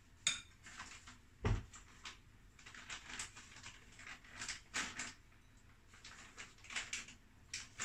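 Light taps and clinks of a spoon against ceramic bowls and plates as wonton filling is scooped onto wrappers, scattered through, with one dull thump about a second and a half in.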